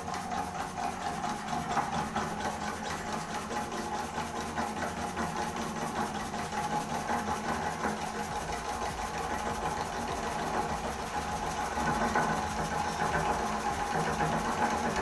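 Homemade single-cylinder steam engine with a wooden flywheel running fast on pressure-cooker steam, a rapid, even mechanical beat that gets a little louder near the end. It is now running on steam pressure, where before it turned on little more than air.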